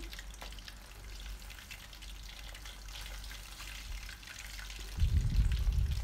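Batter-coated anchovies deep-frying in oil at medium heat, a steady fine crackling fizz. About five seconds in, a louder low rumble lasts roughly a second.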